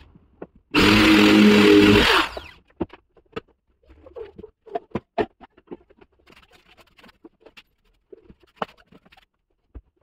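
Power drill running at speed for about two seconds, a steady motor whine with grinding noise. It is followed by scattered light clicks and knocks of handling on the workbench.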